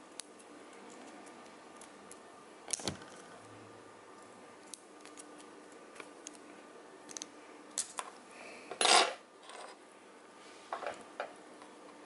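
Plastic parts of a mechanical keyboard switch being handled: scattered light clicks and taps, with one louder brief scrape about nine seconds in.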